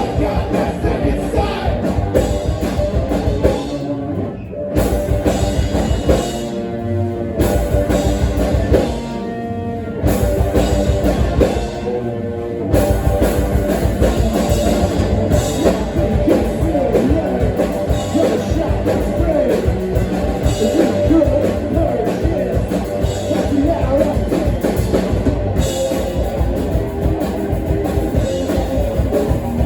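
Live rock band playing loud, with electric guitar, drum kit and singing. Several short breaks in roughly the first twelve seconds leave ringing chords before the full band comes back in and plays on without a break.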